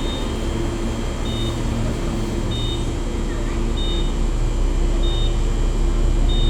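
NGR electric train standing at the platform with a steady hum, over which a short, high electronic beep repeats about every one and a quarter seconds.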